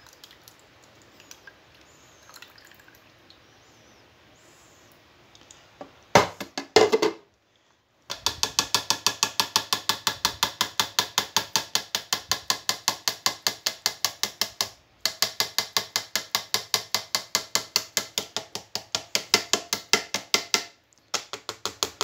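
Two loud knocks about six seconds in, then long runs of rapid, even clicking, about six a second: a small plastic sieve rattled against a glass measuring jug while straining carrot and acerola juice.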